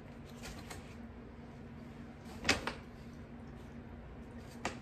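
Quiet room with a faint steady low hum and a few short knocks and clicks, the loudest about two and a half seconds in and another near the end.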